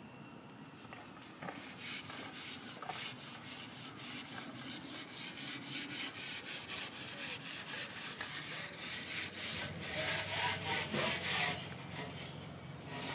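Rhythmic rubbing strokes, about three a second, getting a little louder near the end.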